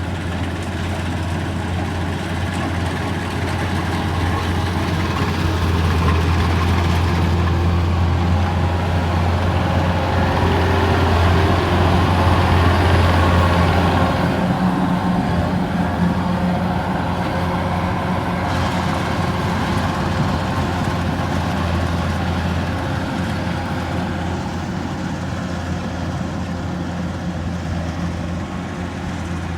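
Kubota rice harvester's diesel engine running steadily with a deep hum. It grows louder toward the middle and then eases off.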